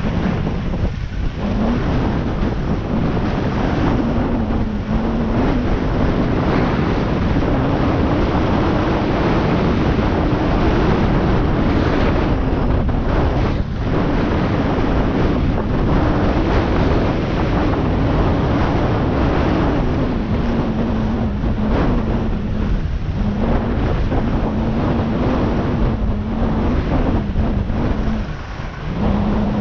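Heavy wind buffeting on the microphone over a steadily running engine, whose drone drifts slightly up and down in pitch.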